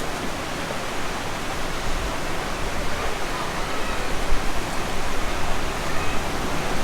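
Waterfall cascading into a rock pool: a steady rushing of falling water.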